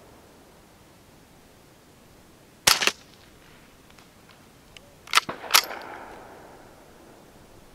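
Ruger 10/22 semi-automatic .22 LR rifle firing CCI Quiet 710 fps rounds: a few sharp but quiet cracks, with faint clicks between them. The low-velocity load does not eject reliably, so the action malfunctions from shot to shot.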